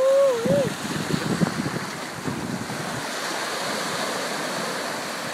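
Ocean surf washing onto the beach in a steady rush of noise. It opens with a man's short exclamation, and low irregular bumps and rustles run through the first couple of seconds before only the surf is left.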